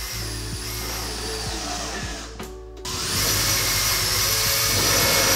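Cordless drill-driver running in two bursts, a high motor whine over a gritty noise, the second burst longer and louder, driving a screw into a metal hollow-wall anchor in plasterboard.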